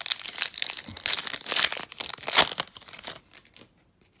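A foil trading-card pack wrapper crinkling and tearing as it is handled and opened, in a rapid irregular rustle that is loudest about two and a half seconds in and stops a little after three seconds.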